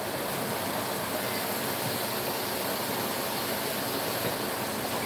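Chicken back pieces sizzling steadily as they fry in a pan.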